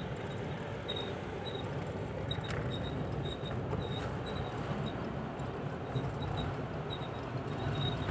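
Steady low rumble of a vehicle driving along a paved mountain road, with short high squeaks coming and going.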